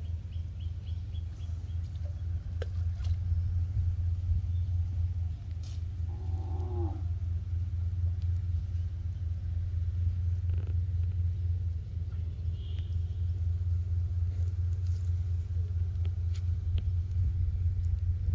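A steady low rumble throughout, with a short wavering animal call about six seconds in.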